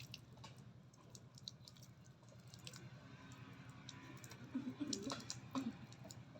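Faint, scattered light clicks and taps, irregular and a few per second, with a brief faint murmur about five seconds in.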